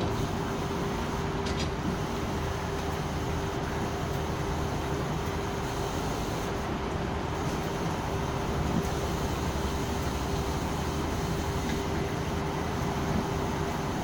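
Revolution washing machine running through its cycle: a steady motor hum over constant rushing and rumbling noise, with a couple of light clicks near the start.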